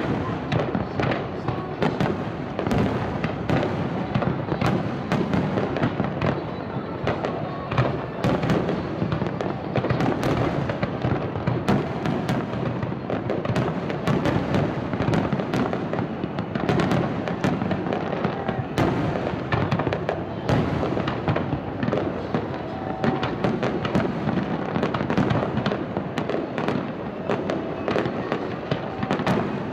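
Aerial fireworks display: shells bursting in a dense, unbroken barrage of bangs and crackling.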